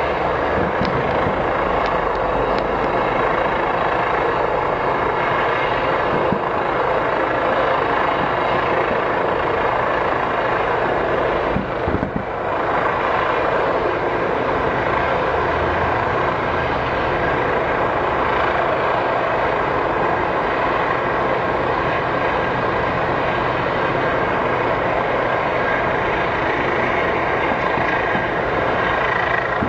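A loud, steady rushing noise, with a few faint bangs from a fireworks display.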